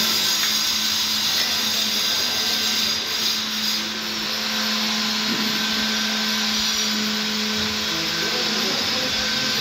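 An electric motor running steadily without a break, a constant hum under a strong hiss, like a power tool left running.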